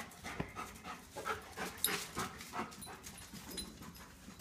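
A dog panting in quick, uneven breaths.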